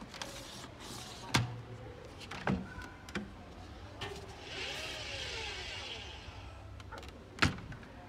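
Front-loading washing machine's porthole door being handled: a sharp clunk as it is opened about a second in, a few lighter clicks, a soft rustling hiss midway, then a loud thud as the door is shut near the end.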